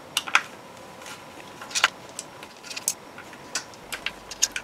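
Scattered small metallic clicks and taps as a Torx screwdriver backs out small screws from an electronics circuit board and the parts are handled.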